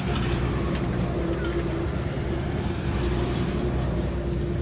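Large six-wheel dump truck driving past on the road: a diesel engine and tyre noise, loud and steady.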